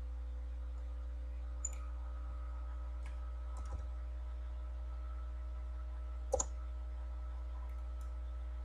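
A few scattered computer mouse and keyboard clicks while a value is entered in CAD software, the loudest a quick double click about six seconds in. A steady low electrical hum runs underneath.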